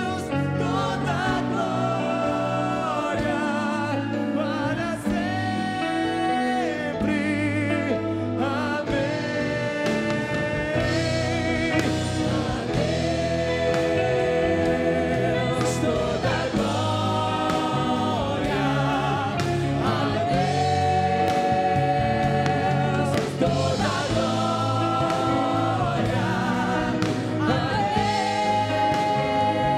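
Live worship band performing a Portuguese praise song: male and female voices singing together over electric guitar and drums, continuous and at a steady level.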